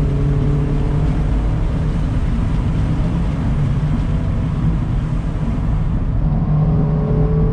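2019 Mazda MX-5 Miata's 2.0-litre inline-four running under load, heard from the open-top cabin over wind and road noise. The engine note climbs as it revs up from about six seconds in.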